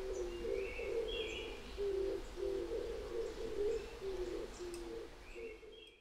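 Backyard birds calling: a continuous run of low, short notes repeating over and over, with scattered high chirps from small songbirds, fading out near the end.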